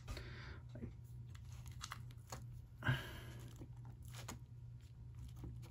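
Faint scattered clicks and scrapes of a small screwdriver and fingertips on the screws and metal connector shield inside an opened iPhone 5, with a brief rustle about three seconds in, over a low steady hum.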